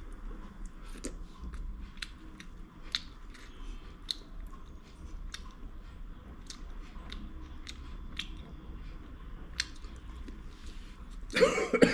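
A person chewing and eating fish, with scattered small mouth clicks and smacks. A louder vocal burst comes near the end.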